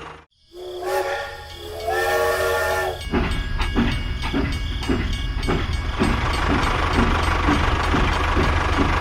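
Two horn blasts, each a steady chord of several pitches like a train horn, the second a little longer. From about 3 s in, a small engine runs steadily with a low hum and a regular knock about twice a second.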